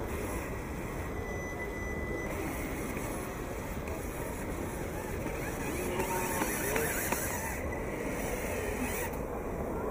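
Radio-controlled scale model Faun 6x6 truck crawling over a dirt trial course, its drive motor and gears running under a steady background din.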